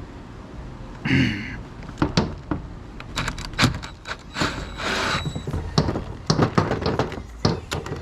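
Irregular metal knocks and clanks as parts of scrap electrical switchgear are worked loose with hand and power tools. A short burst from a power drill comes about a second in, and a longer one comes near the middle.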